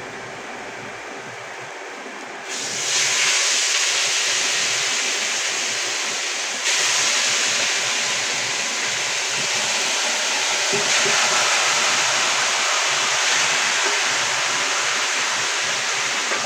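Seasoned chicken pieces tipped from a bowl into a hot pot, searing for stew chicken with a loud, steady sizzle. The sizzle starts about two and a half seconds in and jumps louder again about seven seconds in as more chicken goes in.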